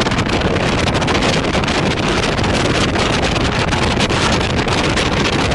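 Heavy wind buffeting the microphone of a camera on a moving motorcycle at road speed, a steady loud rush with the motorcycle running underneath.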